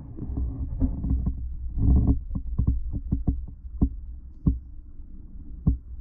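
Muffled underwater sound picked up through a submerged GoPro's waterproof housing: a steady low rumble, a short rush about two seconds in, then a run of sharp clicks and knocks, several close together for about a second and a half and then a few single ones.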